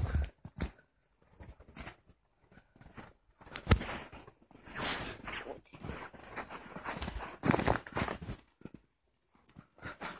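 Footsteps crunching through snow in irregular steps, with a sharp knock a little under four seconds in.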